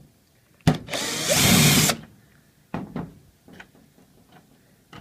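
Power drill briefly running to back out the screw hidden behind the control-console knob of a dryer: a click as it starts, then a little over a second of spinning that gets louder partway through and stops. A few small clicks follow.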